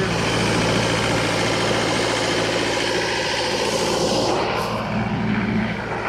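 Diesel engine running steadily at a constant speed, with a low, even hum.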